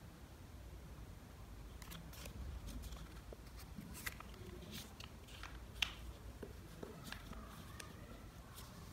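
Origami paper rustling and crinkling as hands fold and crease it: a scatter of short, faint crackles, with one sharper click about six seconds in.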